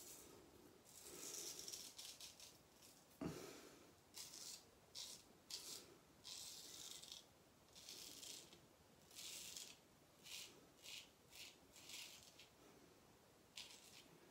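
Straight razor scraping stubble through shaving lather in a series of short strokes, with one soft thump a little over three seconds in.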